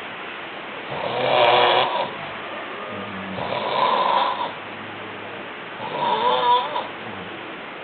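A person snoring: three loud snores about two and a half seconds apart, each swelling and fading, the last with a wavering, rattling pitch.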